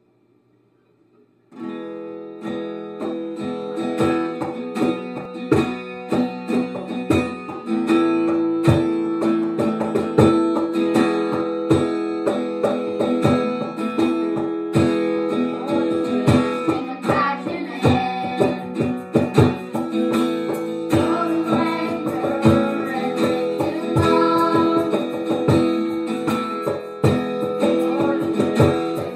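Acoustic guitar strummed in steady chords, starting about a second and a half in, with boys' voices singing along.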